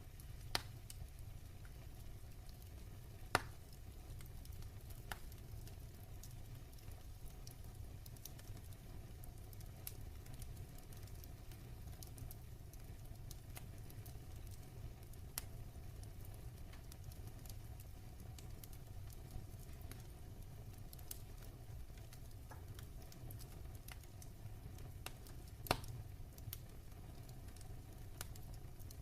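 Wood fire burning in a fireplace: a low steady rumble of flames with scattered crackles and pops, the sharpest about half a second in, near three and a half seconds, and about twenty-six seconds in.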